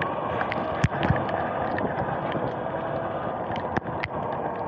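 Sur-Ron X electric dirt bike riding over wet pavement: steady hiss of tyres on the wet surface with a faint electric-motor whine. Two thumps come about a second in, with scattered light ticks throughout.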